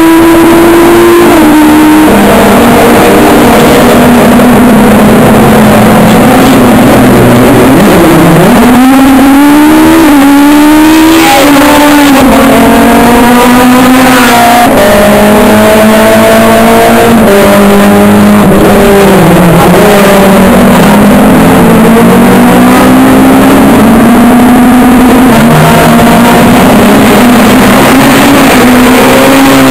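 Rally car engines at full throttle, their pitch climbing and dropping over and over as the cars accelerate, change gear and brake. Around the middle comes a run of quick rising sweeps as one car pulls up through the gears.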